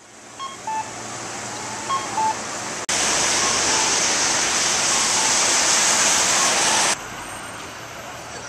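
A steady hiss of outdoor noise that jumps much louder about three seconds in and drops back abruptly near the end. Over it, a soft two-note electronic beep repeats about every second and a half.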